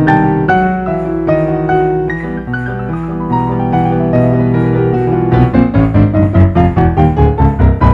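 Piano music: sustained chords, then from about five and a half seconds in, quick repeated chords at about four a second.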